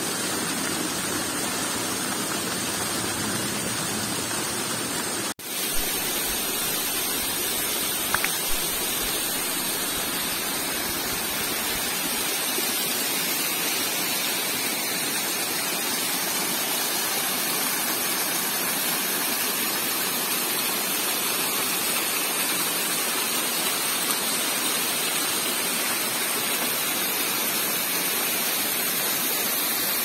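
Waterfall's steady rush of falling water, dropping out for an instant about five seconds in.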